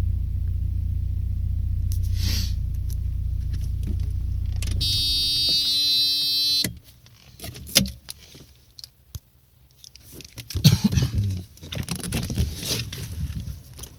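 Audi 80 engine idling, which the owner says has a knocking hydraulic lifter, then shut off about five seconds in. A warning buzzer tone sounds for about two seconds after the engine stops, followed by scattered clicks and a jangle of keys.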